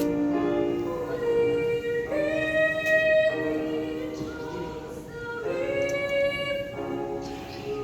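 Children's choir singing long held chords that change every second or two.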